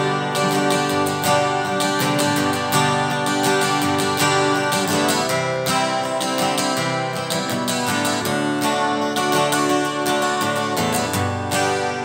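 Steel-string acoustic guitar strummed in a steady rhythm, an instrumental passage with no singing.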